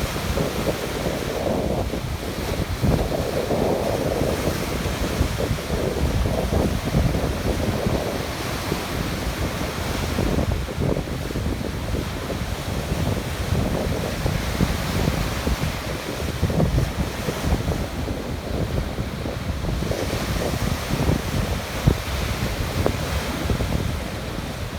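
Sea surf: waves washing and breaking continuously, with wind rumbling on the microphone.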